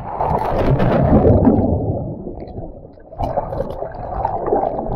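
A person jumping into the sea with an action camera: a loud splash and rush of water, then muffled underwater bubbling and gurgling, with a second wave of churning water a little after the middle.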